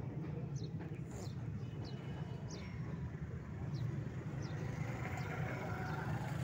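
A steady low mechanical hum, like an engine or motor running, with short high chirps that fall in pitch and recur about once or twice a second.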